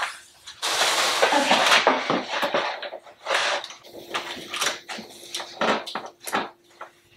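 Peel-and-stick wallpaper and its backing paper rustling and crackling as the strip is handled and pressed onto the wall. There is a long rustle about a second in, then scattered sharp crinkles.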